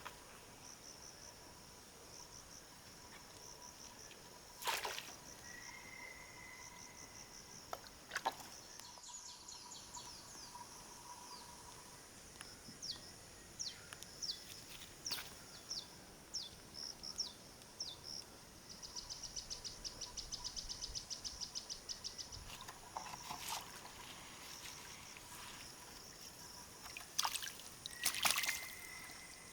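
Outdoor ambience of high-pitched wildlife chirping: scattered short chirps, then a fast trill lasting about three seconds just past the middle, with a few short knocks or splashes now and then.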